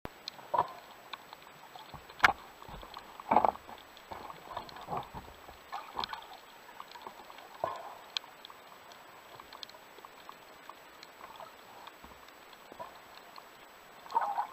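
Underwater sound heard through a diving camera: a faint wash of water with scattered clicks and a few louder knocks as the spearfisher swims with his speargun and a stringer of catch.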